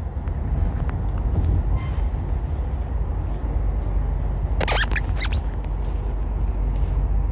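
Passenger train running along the track, heard from inside the carriage: a steady low rumble, with a brief high metallic squeal from the running gear about five seconds in, followed by a fainter second squeal.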